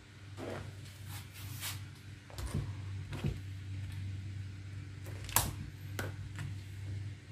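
Wooden spatula scraping and knocking against a pan of thick stew as crab and shrimp are turned over, a series of short irregular clicks and scrapes with a sharp knock about five seconds in. A steady low hum runs underneath.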